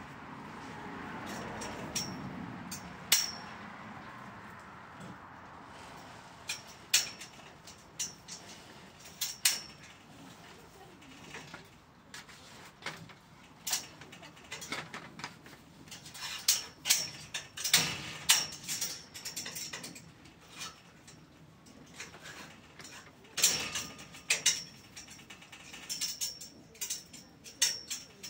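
Irregular sharp clicks and knocks of metal on metal, some ringing briefly, from hands and tools working on a steel-pipe greenhouse frame from aluminium ladders. A softer swell of noise comes in the first few seconds.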